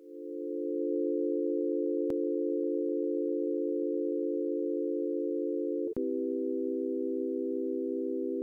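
Sustained electronic drone chord of a few pure tones, fading in at the start and holding steady, then shifting to a lower chord with a click about six seconds in. A faint click comes at about two seconds.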